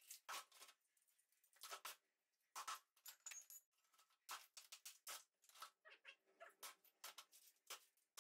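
Faint, irregular scrapes, taps and rustles of rubble and tools being handled by hand at a brick hearth.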